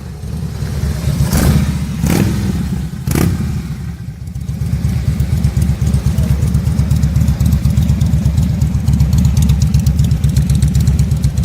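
Harley-Davidson Fat Boy's V-twin engine through a 2-into-1 competition full exhaust: three short throttle blips in the first few seconds, then settling into a loud, steady idle with a fast low pulsing.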